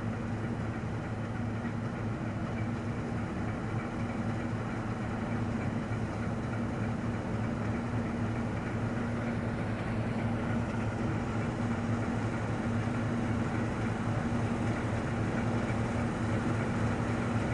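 Claas Lexion 460 combine harvester working in the field: a steady engine drone with a low hum, growing slowly and slightly louder.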